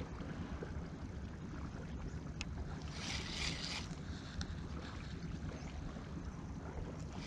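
Spinning fishing reel cranked in a short spurt while jigging for squid: one brief whirr about three seconds in, with a few light clicks, over a steady low rumble of wind on the microphone and water.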